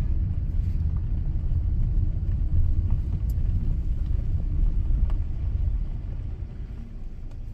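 Car driving slowly over a gravel lot, heard from inside the cabin: a steady low rumble of tyres and engine that eases off near the end.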